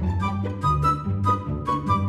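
Background music with a steady beat, a bass line and a melody on top.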